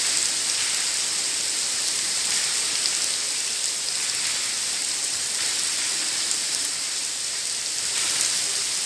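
Artificial indoor rain from the Rain Room installation pouring down steadily: a dense, even hiss of falling water.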